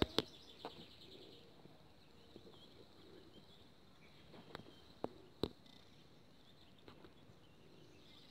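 Faint outdoor ambience: a steady, high-pitched insect trill, with several sharp clicks scattered through it.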